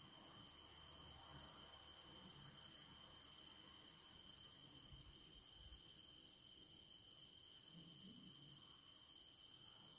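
Near silence with a faint, steady, high-pitched insect trill.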